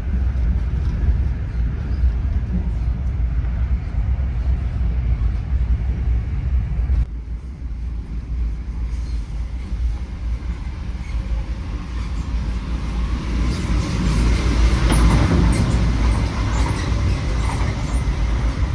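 Passenger train running on the rails, a steady low rumble. The level drops abruptly about seven seconds in, and a louder rushing noise builds from about thirteen seconds and eases off near the end.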